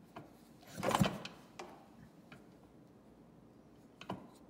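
One kick of the Yamaha YZ125's kickstarter about a second in, spinning the two-stroke single over with its spark plug out and grounded on the cylinder head to test for spark. A few light clicks of the lever and parts follow, the last one near the end.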